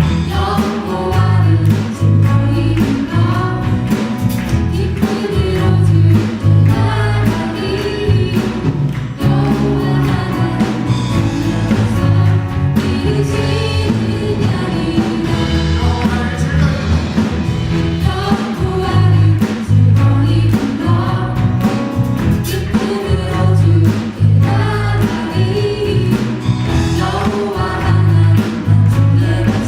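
Church praise team singing a worship song together, backed by a live band with a steady beat.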